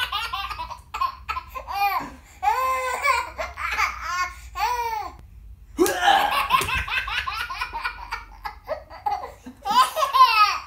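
A baby laughing, a string of high-pitched belly laughs in bursts, with a short pause about five seconds in.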